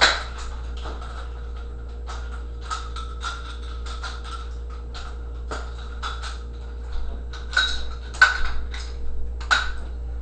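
Nunchucks being swung and twirled: a string of short, sudden swishes and knocks at irregular spacing, the loudest ones bunched about eight seconds in, over a steady low hum.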